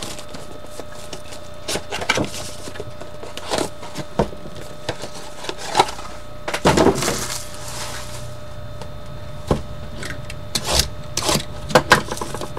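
Cardboard trading-card boxes and their plastic wrap being handled and opened: scattered taps, clicks and rustles, with a louder stretch of crinkling and knocking in the middle.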